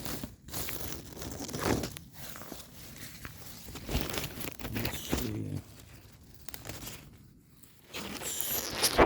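Japanese knotweed stalks being handled: irregular rustling, tearing and cracking as stems are broken off and peeled by hand.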